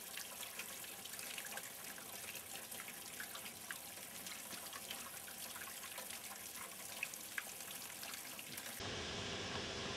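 Well water running and trickling through a jug that releases its dissolved methane, with scattered faint ticks and drips. Near the end it changes to a flat steady hiss.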